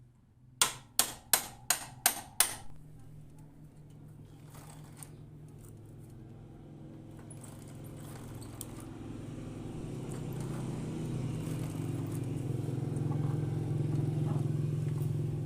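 Six sharp knocks in quick succession, about three a second, then a motorcycle engine running steadily and growing gradually louder.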